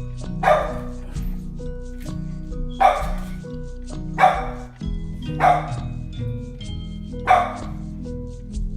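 A dog barking repeatedly, about five loud barks a second or two apart, over background music with steady sustained tones.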